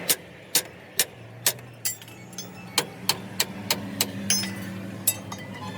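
Repeated hammer blows on steel, about two to three a second with a short pause partway through, over a low steady hum.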